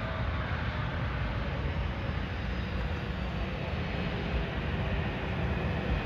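Delta Connection Embraer E170 jet rolling out on the runway after landing, its engines a steady low rumble.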